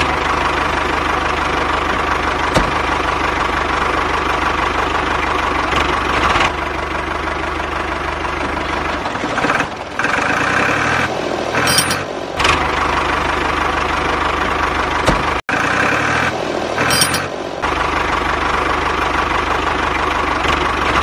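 An engine running steadily at idle with a regular knock, breaking off briefly several times in the middle.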